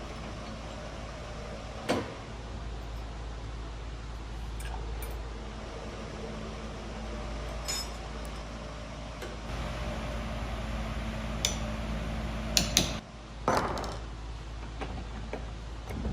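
Tools knocking and clinking now and then while a rough-sawn black locust post is worked from square to round, over a steady low hum. There are a handful of sharp knocks, the loudest bunched together about thirteen seconds in.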